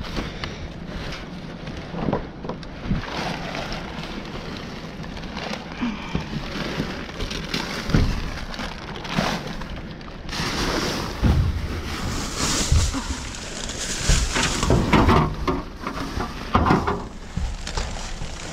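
Plastic trash bags rustling and crinkling as gloved hands dig through a dumpster, with occasional knocks from handling. The crinkling gets busier and louder past the middle.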